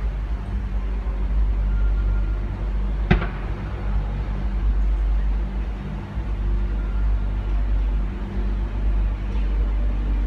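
One sharp firework bang about three seconds in, over a steady low rumble.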